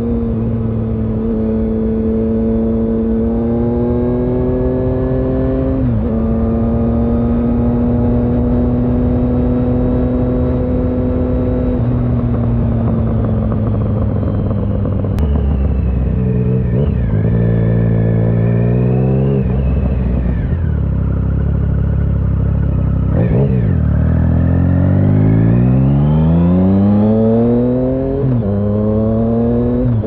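2009 Triumph Speed Triple 1050's inline-three engine through a Competition Werkes low-mount exhaust, heard on board while riding. It holds a steady note for the first half, then the revs climb and fall repeatedly under acceleration, with a long rising rev that drops sharply near the end.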